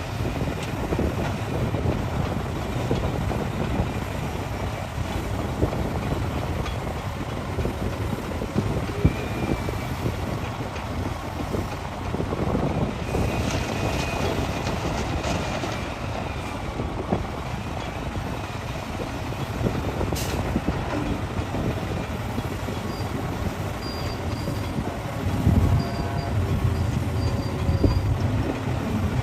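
Hitachi excavator's diesel engine running steadily under working load while the machine digs rock. Brief high squealing tones come from the machine about halfway through, and the engine rises louder again near the end.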